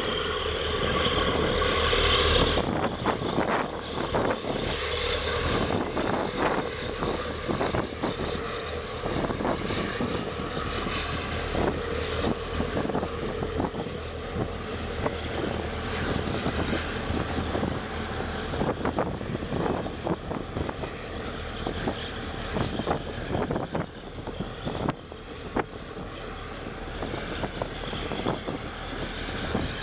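A boat's engine running on the water, with wind buffeting the microphone in irregular gusts. A steadier engine hum with a held tone eases off about two and a half seconds in.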